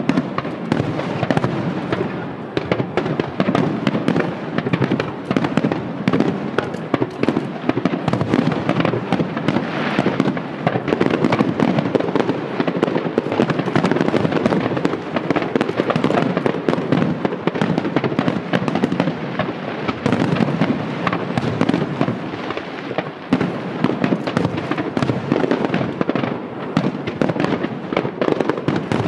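Aerial fireworks shells bursting in quick succession: a dense, unbroken run of overlapping bangs.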